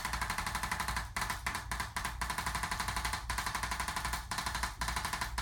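ArthroStim hand-held adjusting instrument firing a rapid stream of light taps, giving a light-force chiropractic adjustment to the neck. The tapping stops briefly several times and then starts again.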